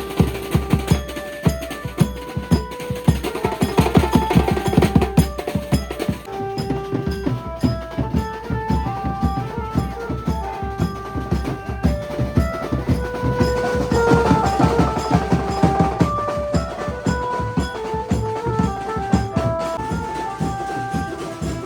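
Maharashtrian banjo party band playing: an electric banjo picks out a melody of short stepped notes over loud, dense drum beats.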